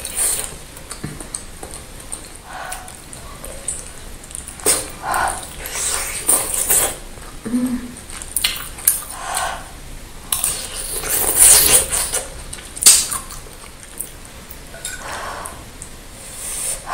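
Close-up eating sounds: wet chewing, lip smacks and slurps from biting into a large bakso iga rib meatball, in irregular bursts, with a metal spoon clinking against the plate.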